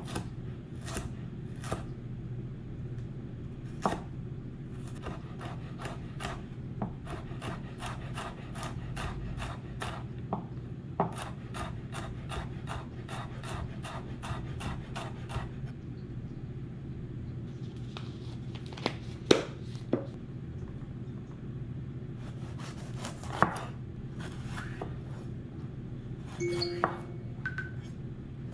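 Chef's knife chopping green chilies on a wooden cutting board. There are a few single cuts, then a quick, even run of mincing strokes at about three a second, then slower, scattered slices.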